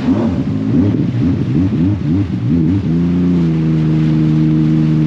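Sea-Doo RXP-X Apex 300 jet ski's supercharged three-cylinder engine, with revs rising and falling quickly several times. About three seconds in it climbs and holds a steady pitch as the craft runs at speed.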